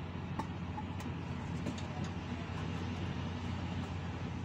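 A steady low mechanical hum like a running engine, with a few faint clicks from a spanner working on the drain plug in the first two seconds.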